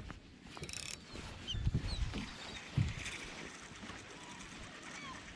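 A fishing reel being wound with a faint mechanical clicking, while gulls give a few short, high squeals. A couple of low knocks, about two and three seconds in, are the loudest sounds.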